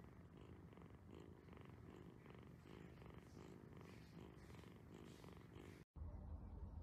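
A kitten purring faintly and steadily, the purr pulsing about twice a second with its breathing. It cuts off about six seconds in and gives way to a low hum.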